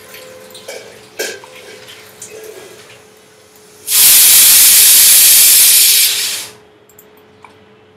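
A loud, steady hiss that starts suddenly about four seconds in, lasts about two and a half seconds, then fades out. Before it, a few faint clicks.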